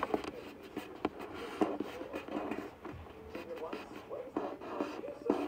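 Paper being handled: irregular rustling and crinkling with small clicks, under a faint background voice.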